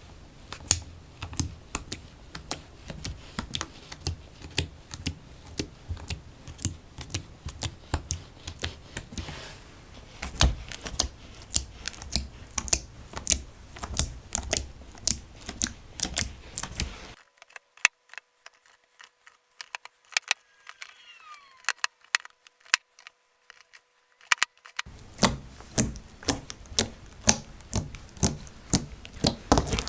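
Jelly slime being pressed and worked by hand, making an irregular run of crisp clicks and pops, several a second, with a quieter stretch of only faint clicks in the middle.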